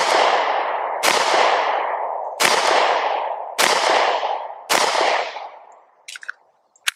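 Five shots from a Glock 43X 9mm pistol firing 124 grain full metal jacket rounds, about one every 1.1 to 1.3 seconds, the first right at the start. Each shot has a long echoing tail. A couple of light clicks follow near the end.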